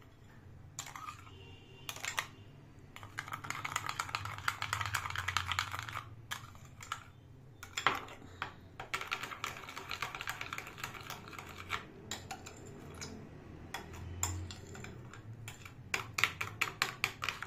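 A metal spoon stirring a thick ketchup sauce in a small glass bowl, clicking and scraping against the glass in quick runs, over a low steady hum.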